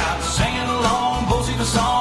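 Country music with a steady beat and a sung melody.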